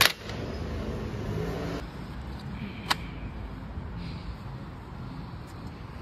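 Bicycle rear-wheel frame lock (ring lock) clicking open with a sharp snap as the key is turned, then a second, lighter click about three seconds in, over a steady low background rumble.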